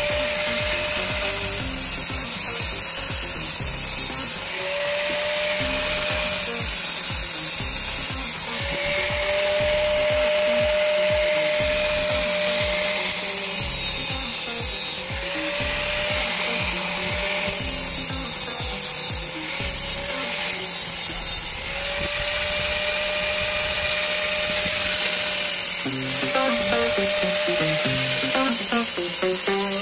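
A high-speed power tool grinding and cutting: a steady motor whine under a rasping hiss. It breaks off and starts again every few seconds.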